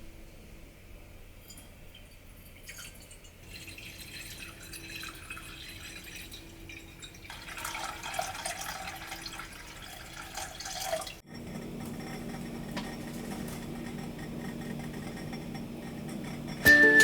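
Water running and splashing into a kitchen container in two spells, then a steady low hum.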